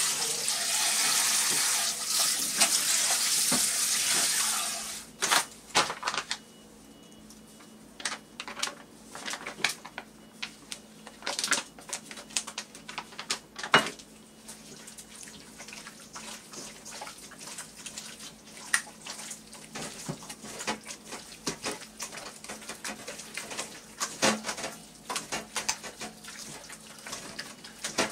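Tap water running into a stainless steel bowl of small octopus for about the first five seconds, then stopping. After that, irregular wet squelches and light clinks against the steel bowl as gloved hands scrub the octopus with flour to clean off foreign matter.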